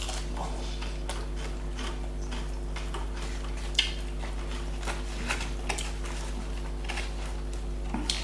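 Light clicks and taps of utensils and dishes as a doner kebab is handled and dressed on a plate, with a sharper click about four seconds in. A steady low hum runs underneath.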